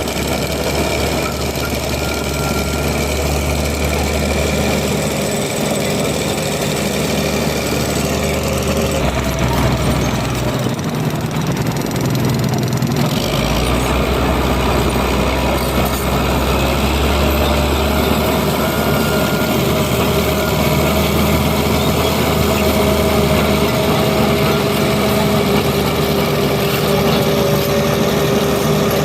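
Bulldozer's diesel engine running steadily. Its low note drops away for a few seconds near the middle, then comes back.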